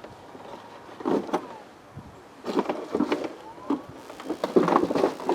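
Hand tools being handled and set down: short bursts of clinks, clicks and rattles, about a second in, again in the middle, and again near the end.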